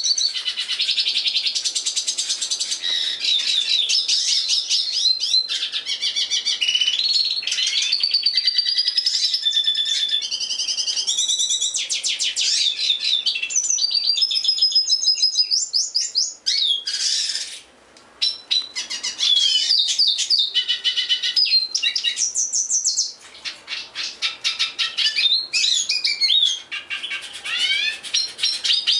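A caged songbird singing a long, varied song of clear whistles, fast trills and chattering phrases, mostly high-pitched, with brief pauses about sixteen, eighteen and twenty-three seconds in.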